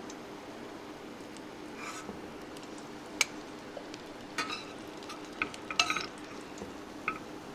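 Shami kababs sizzling gently in hot oil in a steel frying pan while a metal spoon lifts them out. The spoon clinks sharply against the pan five or six times, loudest about three seconds in.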